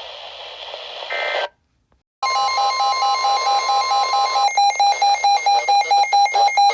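Weather-radio static, a brief break of silence about a second and a half in, then an electronic emergency alert tone: a steady tone together with a second tone pulsing about four times a second. The steady tone drops out about two seconds after it starts, and the pulsing goes on.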